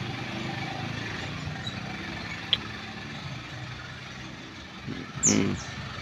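Steady hum of traffic from a busy main road, with a single sharp click about halfway and a short high falling chirp near the end.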